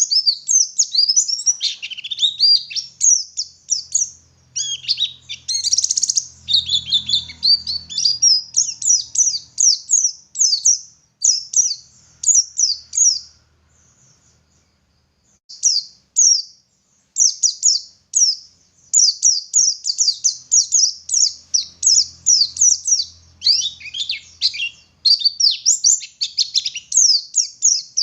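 White-eye (pleci) singing a long, fast, high-pitched twittering song of rapid chirps, with a pause of about two seconds midway.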